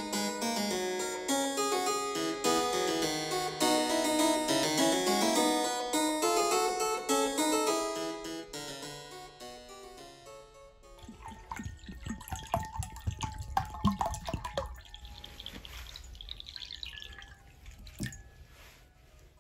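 Harpsichord music that fades out about halfway through. It gives way to soft water sounds from a washbasin: small splashes and drips, many short ticks over a low rumble, with one sharper tap near the end.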